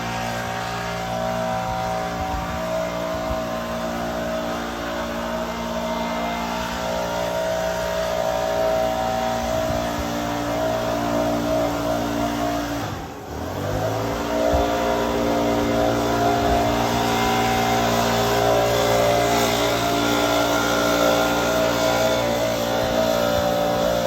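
School bus engine running steadily under way. About halfway through, the engine note dips briefly, then climbs in pitch again and settles.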